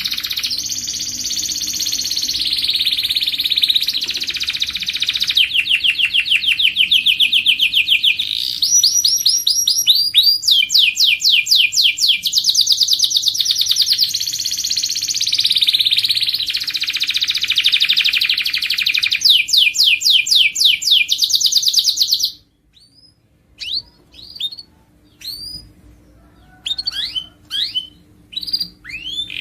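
Domestic canary singing a long, continuous song of rapid trills, each a fast run of the same note repeated, changing from one trill to the next every second or two. The song cuts off suddenly about 22 seconds in, leaving only a few short, separate chirps.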